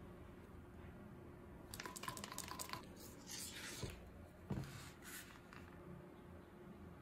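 Faint handling sounds of resin mixing: small scrapes and clicks of a wooden stir stick and a plastic mixing cup, with one knock about four and a half seconds in.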